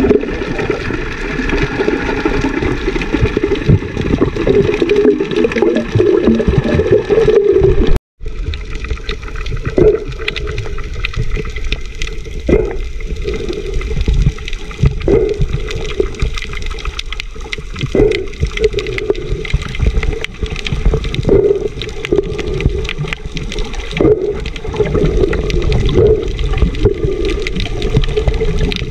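Muffled rushing and bubbling of sea water heard through an underwater camera, dense and low. It drops out for a moment about eight seconds in, then swells in a pulse every two to three seconds.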